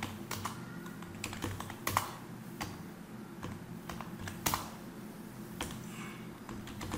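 Computer keyboard being typed on: scattered, irregularly spaced key clicks over a low steady hum.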